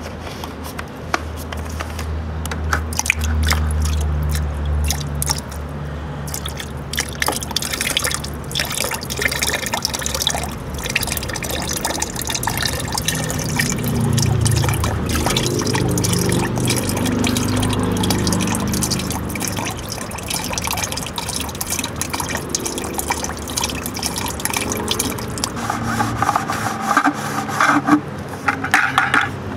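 Liquid bleach pouring from a plastic gallon jug into a plastic bucket of CDs, glugging and splashing onto the discs.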